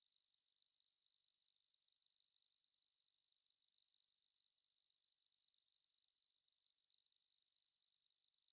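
Electronic sine tone simulating tinnitus ringing: one steady, very high-pitched whine that holds the same pitch and loudness throughout.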